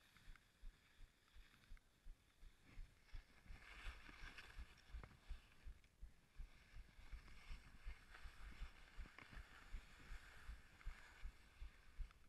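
Skis hissing and scraping over snow in two long stretches on a steep descent, over faint low knocks about three a second.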